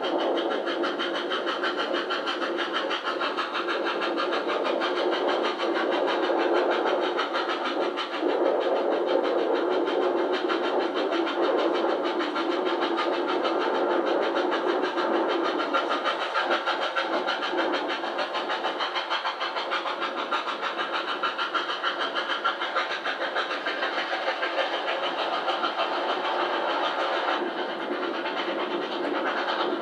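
Victorian Railways R class 4-6-4 steam locomotive working hard at speed, its exhaust beating in a fast, even chuff, with the train's running noise behind it. Played back from old videotape through a television speaker, so it sounds thin and has no bass.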